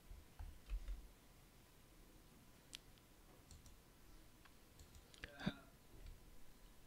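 Faint, scattered computer mouse clicks over quiet room tone, with one louder click about five and a half seconds in.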